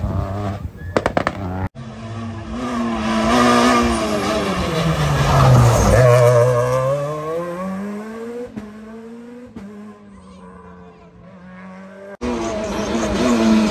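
Peugeot 207 S2000 rally car's engine dropping in pitch as the car slows for a hairpin, then rising as it accelerates out and fading into the distance. Near the end another loud rally engine comes in suddenly.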